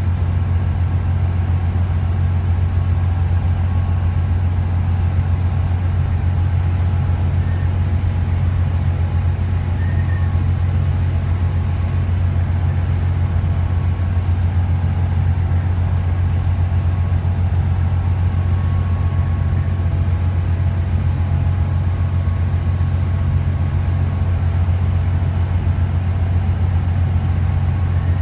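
A ferry's engines running underway: a steady, loud low drone with a faint hum of higher tones above it.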